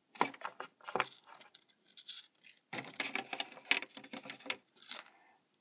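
Scratching and clicking handling noise as small plastic toy figures are moved about by hand. It comes in two stretches, a short one at the start and a longer one from about three seconds in.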